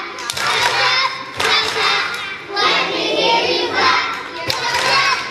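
A group of young children singing together in short phrases of about a second each, with steady low accompaniment notes underneath.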